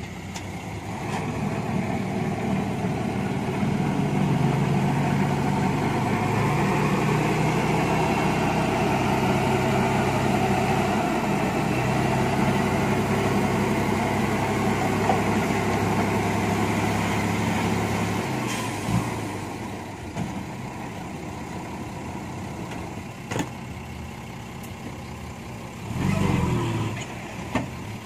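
Dump truck's diesel engine revving up to drive the hydraulic hoist as the tipper bed raises and the load tips out. It runs at high, steady revs for about fifteen seconds, then drops back to a lower idle, with a couple of brief low surges near the end.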